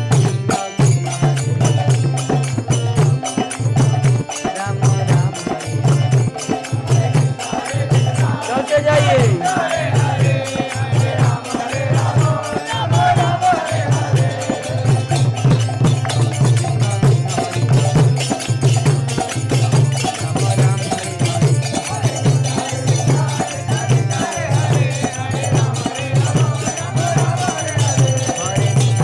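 Devotional mantra-chanting music with a steady, even drum beat; a sung line stands out about nine to fourteen seconds in.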